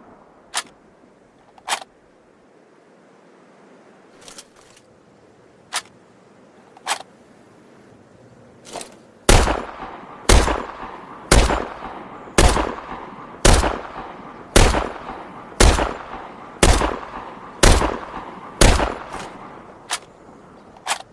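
SVD semi-automatic sniper rifle, a 7.62×54mmR rifle, as a sound effect: several sharp metallic clicks of the action first, then about ten shots fired one after another, roughly one a second, each with a ringing echo tail, and a couple of clicks near the end.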